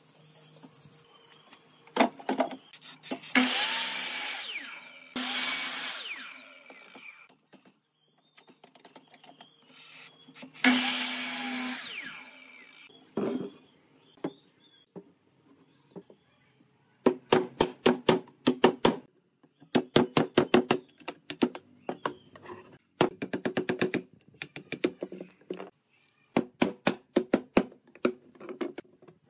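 A sliding miter saw runs and cuts through wood three times in the first dozen seconds. Later come bursts of quick, sharp taps as a chisel is driven into a round wooden pole to cut a notch.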